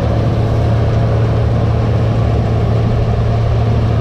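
A large diesel farm-machinery engine running steadily at constant speed, with a deep, even hum.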